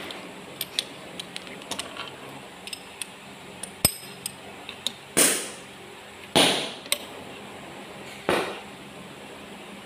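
Metal hand tools clinking and clicking against each other and against an engine block, then three louder, harsh metallic noises, about a second or two apart, in the second half.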